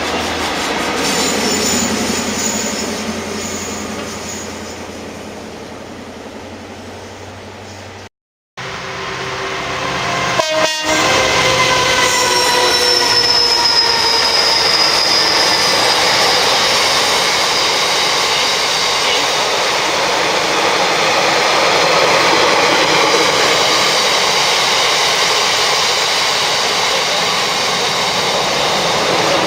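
Trains passing close by on a railway line. The first fades away over several seconds. After a short break there are a few sharp clicks, then a second train passes loudly, its tones slowly falling in pitch.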